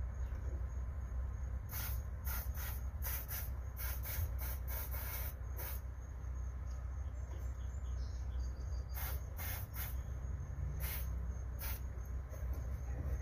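Aerosol spray can hissing in short bursts, several in quick succession and then a few more later, sprayed up under the boat's rusted steering helm. A steady low rumble runs underneath.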